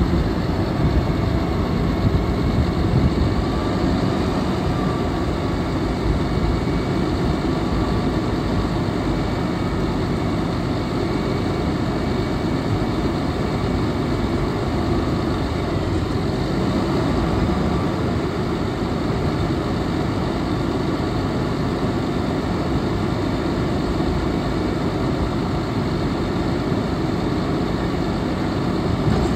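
2004 GMC T7500 dump truck's engine running steadily while its hydraulic hoist raises and lowers the dump bed.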